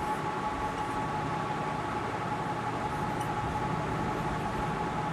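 Marker pen writing on a whiteboard, faint scratching strokes over a steady electrical hum that carries two steady tones.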